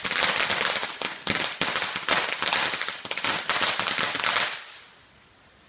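Firecrackers going off in a rapid, dense string of cracks and pops, dying away about four and a half seconds in.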